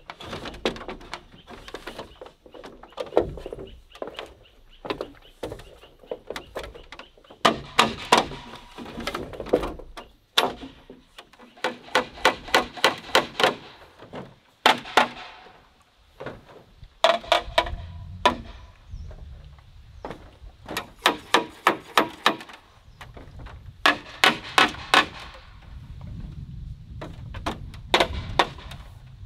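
Hollow bamboo poles being struck hard with a tool in quick runs of ringing knocks, about four or five a second, as the frame joints are knocked together. Several runs come one after another with short pauses between them.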